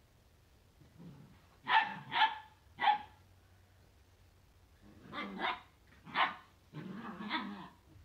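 Borzoi puppies barking and growling in play-fighting. Three sharp barks come about two seconds in, then rougher barks and a stretch of growling near the end.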